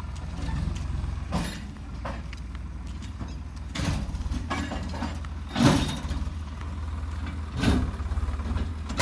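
Heavy diesel engine of earthmoving machinery running steadily, with four short loud bursts of noise a couple of seconds apart.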